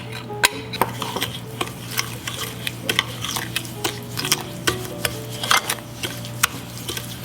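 A utensil stirring in a mixing bowl, clicking and scraping against the sides in quick, irregular strokes, as melted butter is mixed into sugar and cinnamon for a crumb topping.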